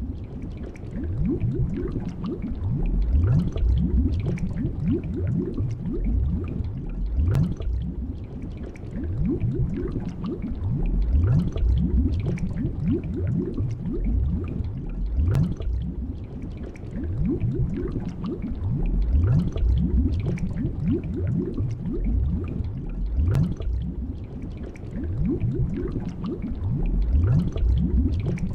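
Underwater bubbling: a steady, dense stream of low gurgling bubbles, with a sharper pop now and then.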